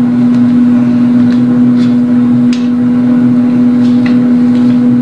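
Steady electric hum of an air fryer preheating, one unchanging pitch, with a few light clicks from a measuring spoon and spice containers.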